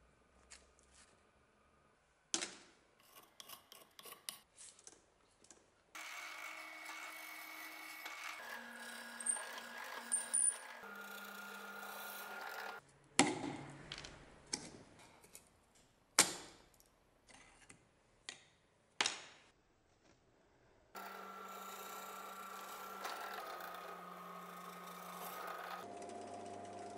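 Electric drill drilling out the rivets of a cleaver's wooden handle scales in two runs of several seconds, its pitch shifting as it bites. Before and between the runs, a chisel worked under the scales gives sharp knocks and clicks.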